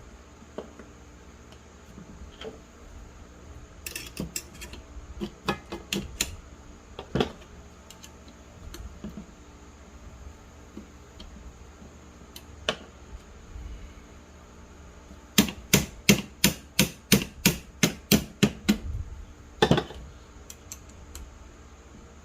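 Sharp metallic clicks and taps of small metal parts being handled, scattered at first, then a quick even run of about a dozen clicks, roughly three or four a second.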